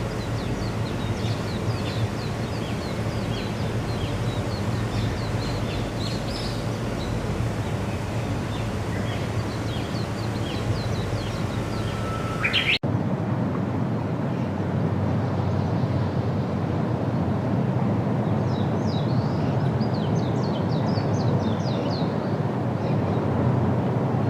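Small birds chirping repeatedly over a steady outdoor rushing background. About halfway through there is a short rising whistle, then an abrupt cut to a slightly different background, and a further run of chirps near the end.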